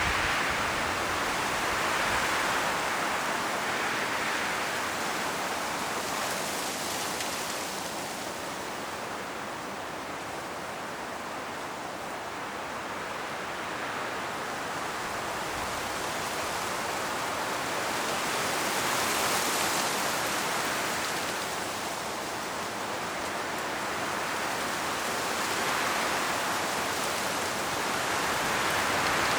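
Strong wind rushing through forest trees, rustling the autumn leaves, rising and falling in slow gusts every few seconds.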